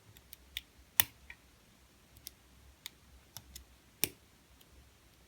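Lock pick and tension wrench working the pins of a JJ80 challenge lock cylinder: scattered small metallic clicks at an irregular pace, with two sharper clicks, about a second in and about four seconds in.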